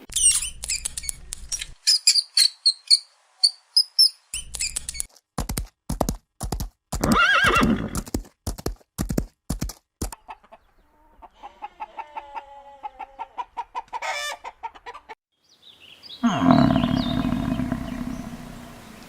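A run of different animal calls, one after another: high chirping, then sharp clicks around a call, then quieter calls, then a loud call near the end, with a horse neighing among them.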